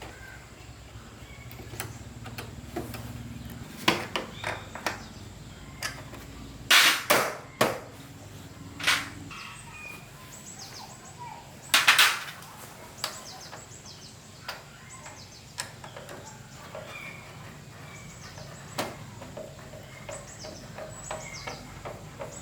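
Scattered clinks and knocks of hand tools on metal parts, with two loud short bursts of noise about 7 and 12 seconds in.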